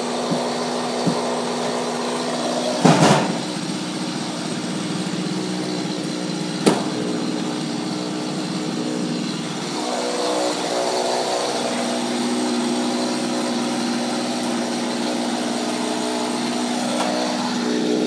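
Two-stroke chainsaw running steadily at idle, its pitch holding level. A loud thud about three seconds in and a sharp knock near seven seconds.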